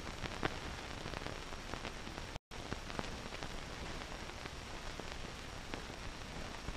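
Steady hiss with scattered clicks and crackles of an old film soundtrack, broken by a brief dropout about two and a half seconds in.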